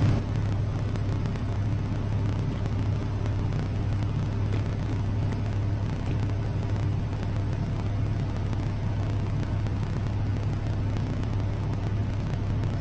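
Rolled ice cream machine's refrigeration unit, under its cold plate, running with a steady low hum.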